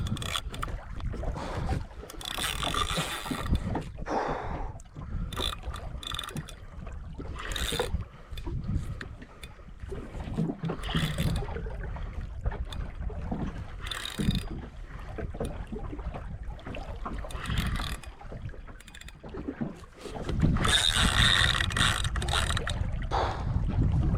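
Fishing reel being cranked in while playing a fish, with irregular mechanical clicking from its gears, over wind and water noise around the boat. A louder rush of noise comes near the end.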